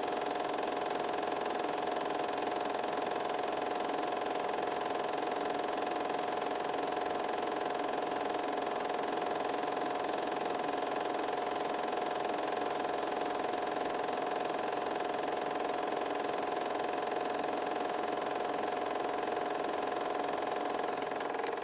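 Steady mechanical whirr of a film projector running, with a constant mid-pitched hum: the soundtrack of a silent home movie transferred by projecting it.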